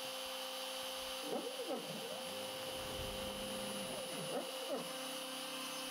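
Homemade CNC router milling slots in wood with a 3 mm upcut spiral bit: the spindle's steady high whine over the stepper motors' hum, whose pitch dips and rises twice, about a second and a half and four and a half seconds in. The machine runs smoothly and without strain at a 400 mm/min feed and 3 mm depth of cut.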